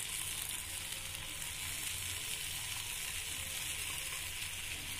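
Steady sizzling hiss from a hot pan of coarsely ground roasted sesame seeds as sweetened condensed milk is spooned into it from the tin.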